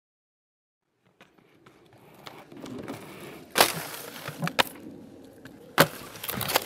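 Aggressive inline skates on a makeshift rail set on stacked tyres, starting after about a second of silence: two hard impacts, about three and a half and six seconds in, as the skater lands on the rail and comes off it, with scraping and smaller knocks of the skates sliding along it in between.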